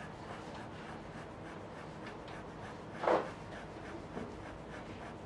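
Drawing strokes on paper, a run of light repeated lines, with one louder stroke about three seconds in.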